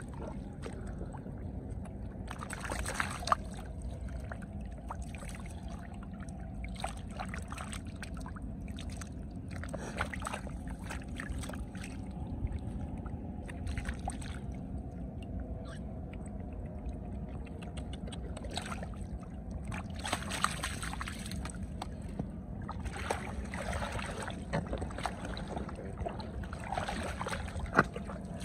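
Hands sloshing and splashing in shallow muddy water while groping for catfish, with a few sharper splashes at irregular moments over a steady low rumble.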